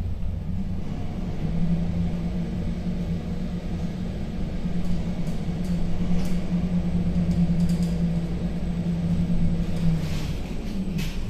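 Glass panoramic passenger lift travelling upward: a steady low rumble and motor hum as the car moves, the hum settling in about a second and a half in and dying away near the end as the car slows to a stop.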